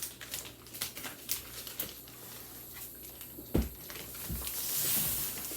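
Handling and moving a large cardboard box: scattered taps and clicks, two low thumps about three and a half and four seconds in, and a rustling scrape near the end.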